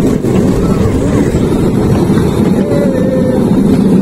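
Miniature park railway train running along its track: a loud, steady low rumble and rattle of the train, heard from a seat in an open carriage.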